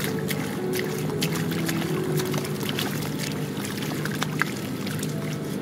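Bare hands scooping and squelching through wet mud and muddy water, with many short splashes and wet smacks throughout.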